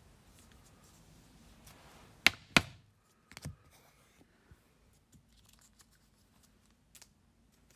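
Trading cards and their packaging being handled at the table: two loud sharp snaps a little over two seconds in, a softer one about a second later, then scattered light ticks.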